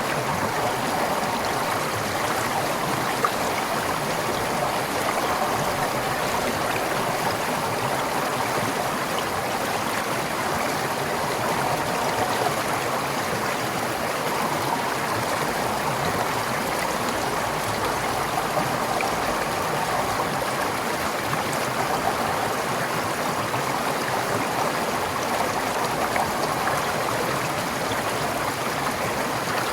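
Forest stream flowing steadily over rocks, a continuous rush of water with gurgling.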